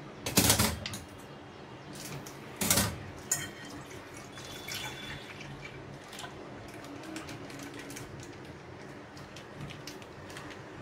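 Plastic milk pouch rustling and snipped with scissors, two sharp sounds in the first three seconds, then half a litre of milk pouring from the pouch into a saucepan in a steady stream.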